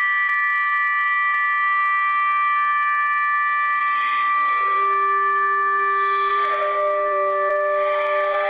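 EAS-style emergency alert alarm: several steady electronic tones held together in a chord, with lower tones joining about halfway through and again near the end.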